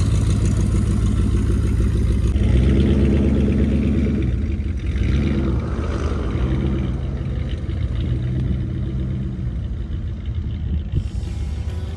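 Car engine running and revving, its pitch rising and falling repeatedly.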